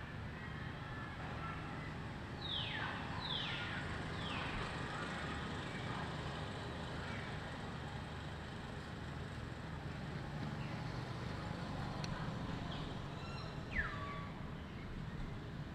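Outdoor ambience with a steady low rumble, broken by short high animal calls that fall steeply in pitch: three in quick succession a few seconds in and one more near the end. A single brief knock near the end is the loudest sound.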